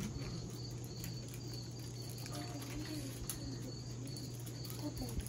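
Crickets chirping in a steady rhythm, about three high chirps a second, over a steady low electrical hum.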